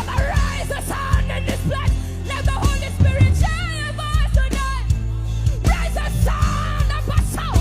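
Worship music with a steady beat on drums and bass. A melody line with heavy vibrato comes in about halfway through.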